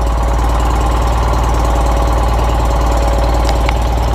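Wheel Horse garden tractor's engine running steadily, with an even, rapid firing beat; two faint light clicks about three and a half seconds in.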